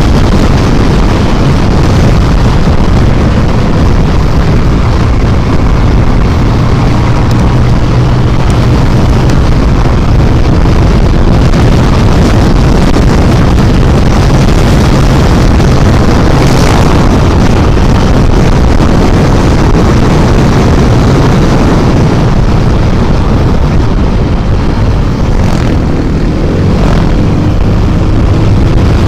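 Honda automatic scooter's engine running at highway speed, a steady low drone under a loud rush of wind noise.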